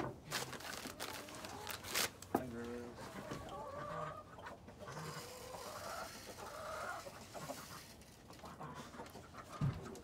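Hens clucking in the coop, a run of short calls one after another, with a few sharp knocks in the first couple of seconds.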